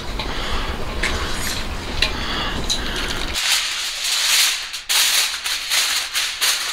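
Aluminium foil crinkling and crackling as a large sheet is spread and smoothed by hand, starting about three seconds in. Before that there is a low rumble with a few faint clicks.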